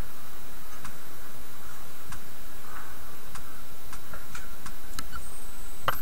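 Computer mouse clicking at irregular intervals, a single sharp click every half second or so with some longer gaps, and a louder click near the end, over a steady faint hiss.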